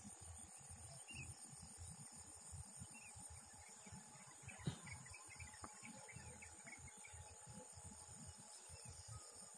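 Faint, steady, high-pitched buzzing of insects, over a low fluttering rumble. There is one sharp click about halfway through.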